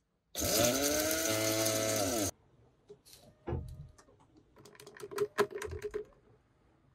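Small electric blade coffee grinder running for about two seconds on whole beans. Its whine rises as the motor spins up, holds steady, then falls away as it is released. This is followed by scattered light clicks and taps as the grounds are tipped from the grinder's cup into a French press.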